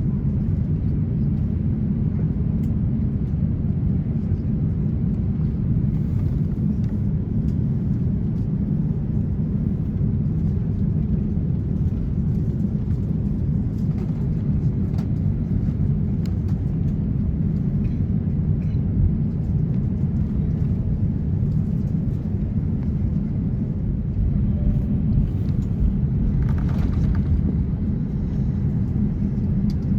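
Cabin noise of an Airbus A350-900 taxiing: a steady low rumble from its Rolls-Royce Trent XWB engines at idle and the rolling airframe, with a few faint clicks and a brief rattle near the end.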